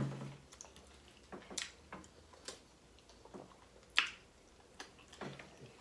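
Quiet eating noises as a handful of pounded yam dipped in pepper soup is bitten and chewed: scattered small wet mouth clicks and smacks, with one sharper click about four seconds in.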